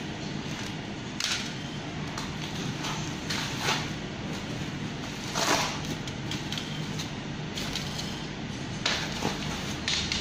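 Protective packaging wrap being cut with a utility knife and pulled off a bicycle rim: several separate crinkling, tearing rustles, the loudest about five and a half seconds in, over a steady low hum.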